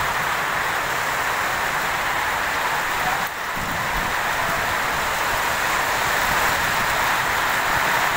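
Steady hiss of rain falling around a railway platform.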